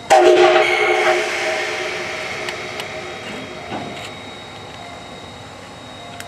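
Steam whistle of the D51 200 steam locomotive giving one short blast, a chord of several tones with a hiss, that stops about a second in and fades away over the next few seconds.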